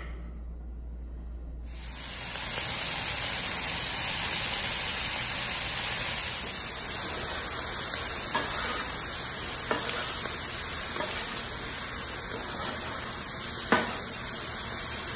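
Onions, bell peppers and mushrooms sizzling on a Blackstone flat-top griddle as they are stirred with a spatula; the sizzle starts about two seconds in and runs steadily, with a few sharp clicks of the spatula against the griddle near the end.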